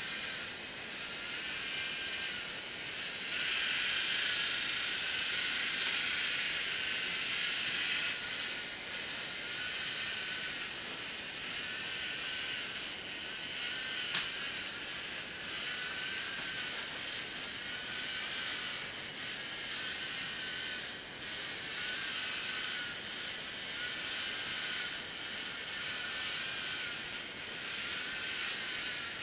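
LEGO Mindstorms NXT servo motors and their plastic gear trains whining as the robot drives and steers, the pitch wavering up and down as the proportional wall-following control keeps changing the wheel speeds. The whine is louder for a few seconds near the start, and there is a single sharp click about halfway through.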